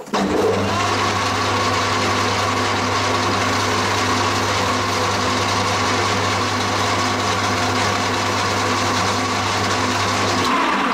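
Metal lathe starting up and running steadily with a constant motor hum, turning a large cast aluminium table. Near the end it is switched off and its pitch begins to fall as it winds down.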